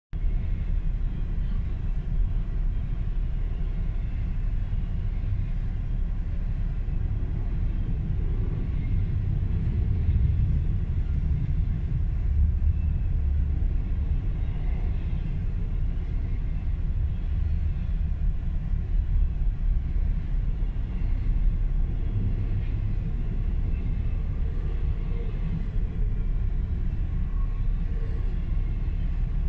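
Canadian Pacific double-stack container freight train rolling through a level crossing, a steady low rumble of the passing cars, heard from inside a car's cabin.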